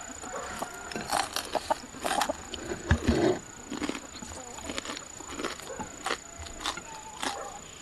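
Eating at a table: chewing and mouth noises, with sharp clicks of wooden chopsticks against a ceramic bowl, over a faint steady high-pitched tone.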